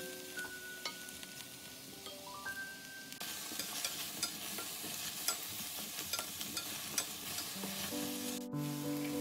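Eggplant chunks sizzling in hot oil in a stainless steel frying pan, tossed with two wooden spatulas that click and scrape against the pan. The sizzling grows louder about three seconds in. Soft background music with plucked notes plays at first and again near the end.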